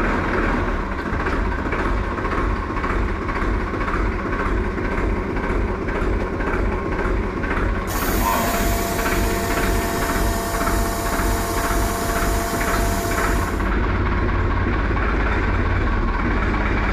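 Tractor engine idling with an even beat. About eight seconds in, a hiss with a steady tone joins it for nearly six seconds, as of fuel being pumped, then cuts off.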